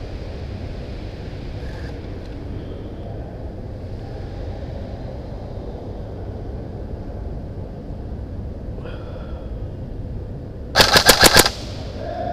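Airsoft electric gun (M4-type AEG) firing one short full-auto burst of about eight rapid shots near the end, over a steady low rumble.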